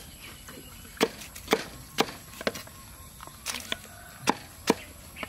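Knife chopping banana flower on a round wooden chopping block: sharp, irregular knocks, roughly two a second, some louder than others.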